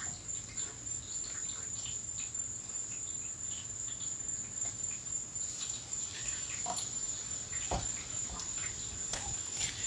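Steady high-pitched chirring of a cricket, with a few faint ticks and taps and one louder knock about eight seconds in.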